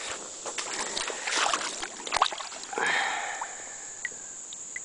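Water splashing and scattered knocks around a kayak as a turtle is released into the river, with a steady high drone of crickets behind.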